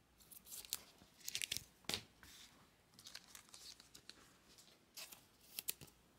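Baseball cards and their clear plastic holders being handled and slid against each other: faint, short scraping rustles, a cluster in the first two seconds and another near the end.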